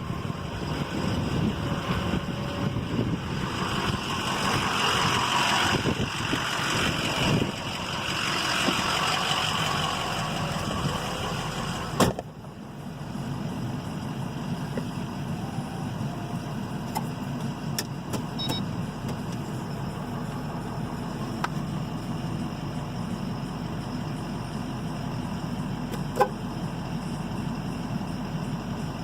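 A truck running with steady engine and road noise. About twelve seconds in there is a single sharp knock, after which the noise is quieter and steadier.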